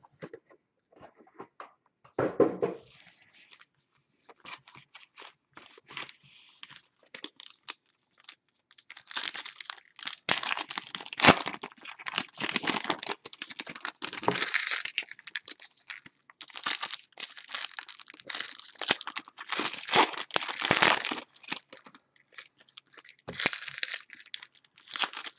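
Foil football card packs being torn open and their wrappers crinkled: a run of short crackling rustles, sparse at first and much busier from about nine seconds in.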